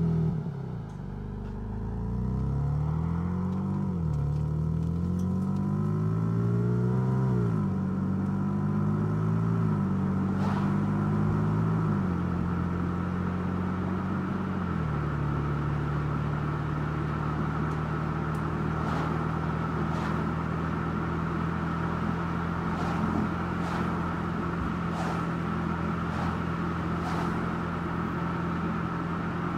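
Car engine pulling away and accelerating up through the gears, its pitch rising and dropping back at each of several upshifts, then settling to a steady cruise with road noise.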